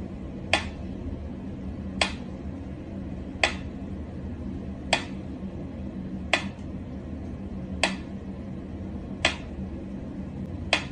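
Mechanical pyramid metronome ticking slowly and evenly, one sharp click about every one and a half seconds, over a faint steady hum.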